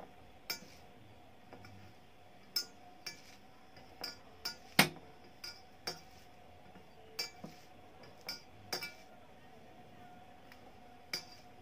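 Hand mixing rice on a steel plate, giving about a dozen short sharp clinks against the metal, the loudest about five seconds in, over a faint steady hum.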